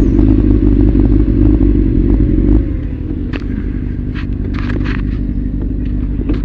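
Motorcycle engine running steadily at low revs, dropping off about two and a half seconds in, with scattered clicks and scrapes and a sharp knock near the end.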